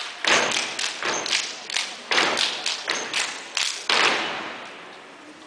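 Step team stomping in unison: a rhythmic string of sharp thuds, about two a second, ending with a loud stomp about four seconds in that rings out through the hall.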